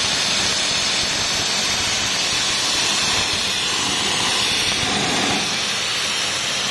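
Steady rush of forced air from a blower pipe aimed into a burning charcoal grill, fanning the coals to get them going.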